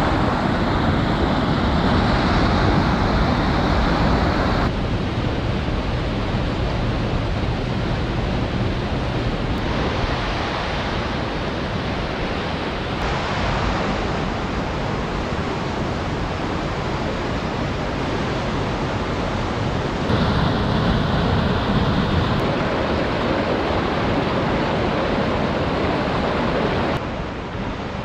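Fast mountain river water rushing and cascading over limestone rocks in a narrow gorge: a loud, steady whitewater rush, with several sudden shifts in level and tone.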